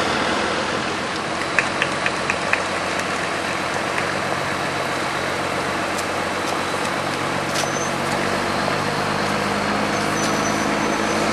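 A motor vehicle engine running steadily amid street noise, with four quick sharp clicks in a row about two seconds in.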